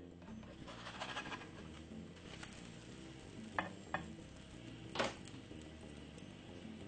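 Pancake batter sizzling in an oiled skillet, with three sharp taps: two close together past the middle and the loudest about five seconds in.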